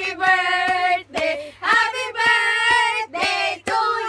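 A group of women singing loudly together in long held notes, with sharp taps keeping a beat underneath.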